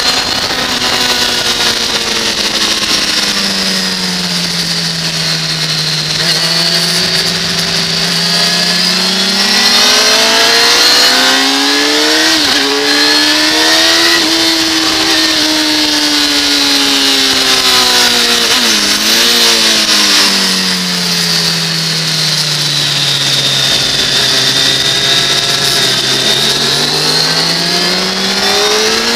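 2006 Kawasaki ZX-10R's inline-four engine at speed on a race track: revs drop away into a corner, climb hard on acceleration with a short dip at an upshift about twelve seconds in, then fall under braking with a quick blip on a downshift around nineteen seconds, and climb again near the end. Steady wind rush over the bike-mounted camera throughout.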